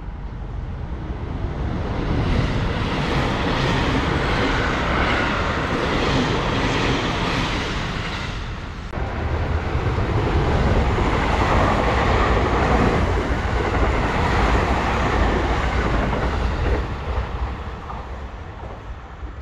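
Seibu 001 series Laview electric limited express trains running past at speed: wheel-on-rail noise with a deep rumble swells and fades. The sound breaks about 9 seconds in, swells again, and dies away near the end as the train recedes.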